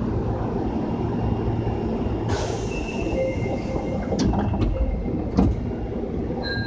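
Osaka Metro 22 series subway train running through a tunnel, heard from inside the car: a steady low rumble of wheels on rail. A little over two seconds in, a hiss rises and high, steady wheel squeal sets in, and a few sharp clacks come over the rail joints.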